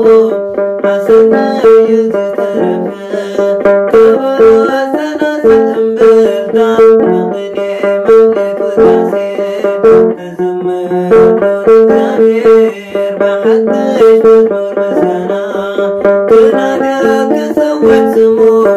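Begena, the large Eritrean/Ethiopian lyre, plucked in a steady, repeating figure of low notes.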